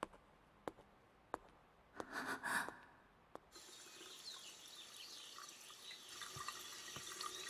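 A few light footstep clicks and a brief rush of noise, then a tap starts running water into a sink about three and a half seconds in, a steady splashing that goes on.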